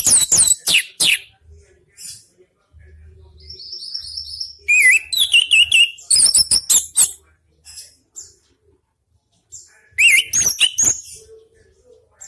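Orange-headed thrush (anis merah) singing loudly in three bursts of high whistled phrases, with quick rising and falling sweeps and rapid runs of notes and pauses between: near the start, in the middle and near the end.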